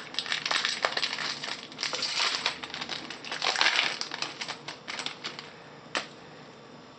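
Foil trading-card pack wrapper being torn open and crinkled, with quick crackles and rustles for about five seconds. A single sharp tap comes near the end.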